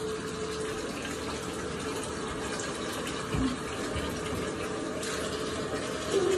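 Water running steadily from a tap into a bathtub, an even rushing sound, with a soft thump about three and a half seconds in.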